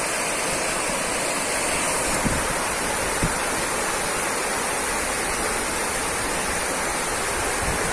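White water rushing steadily down a shallow rock cascade at a waterfall.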